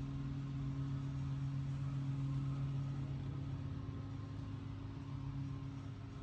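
A handheld power tool's motor running steadily on car paintwork, with a low steady hum whose pitch dips slightly about halfway through.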